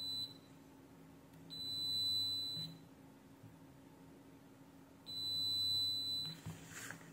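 Digital multimeter's continuity beeper sounding three times, a brief high beep and then two of about a second each, as the probes bridge the power supply's DC rail: the sign of a short circuit on the DC rail. A few soft probe clicks follow near the end.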